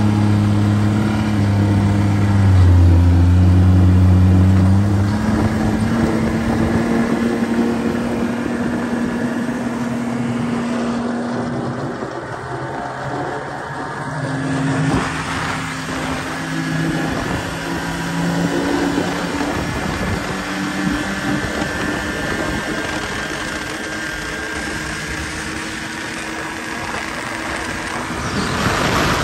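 Snowmobile running at steady cruising speed, its engine note holding mostly steady with a few shifts in pitch over a constant rushing noise from the track and the moving air.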